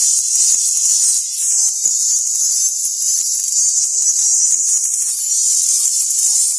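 A small tweeter speaker playing a song with only its treble coming through: a thin, hissy sizzle of high notes and cymbals, with almost no bass or midrange.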